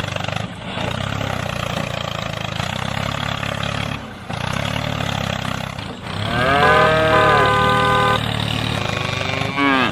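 Tractor engine running steadily at idle, a low even rumble. About six seconds in, a loud pitched call rises and holds level for about two seconds over it.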